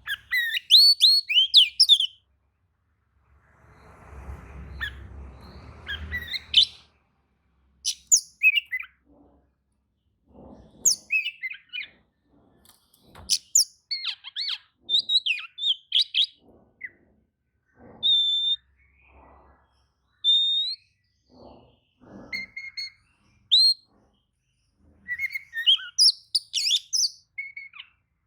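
Oriental magpie-robin (kacer) singing: bursts of varied whistled notes, quick sweeping chirps and trills, broken by short pauses. A rustling noise comes about four to six seconds in.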